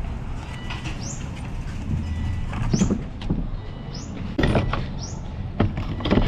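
Knocks and clicks of parts being handled while a car fuel pump is taken apart by hand, the sharpest about three, four and a half, five and a half and six seconds in. A short high chirp, rising in pitch, repeats about once a second over a low rumble.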